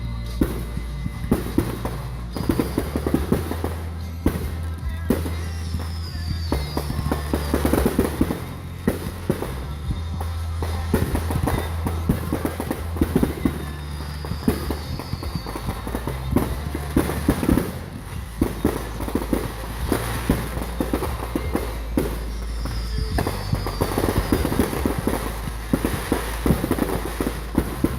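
Fireworks display going off in a continuous run of bangs and crackling bursts, with music playing underneath.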